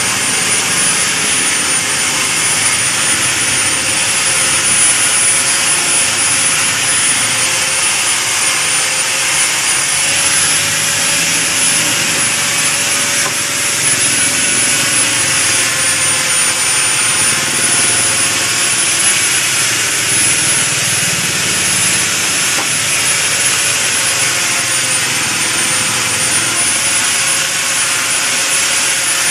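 Woodworking power machine running steadily, a continuous mechanical noise with a high whine that drifts slightly in pitch.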